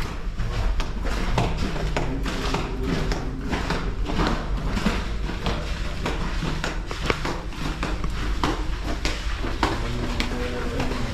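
Steady low rumble with frequent short clicks and knocks scattered throughout.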